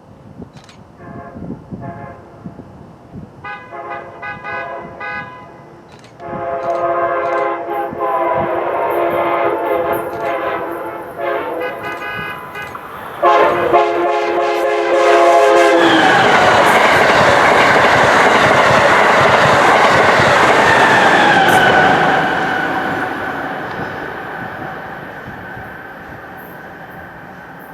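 Amtrak Acela Express high-speed train sounding its multi-note horn in a long sequence: short blasts at first, then longer, louder blasts. The horn drops in pitch as the train passes, followed by a loud rush of the train going by at speed that slowly fades.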